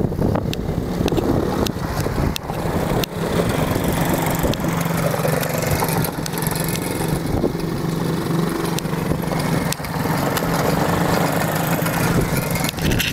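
Small youth ATV engines running close by as the machines ride around, the engine note rising and falling a little with the throttle.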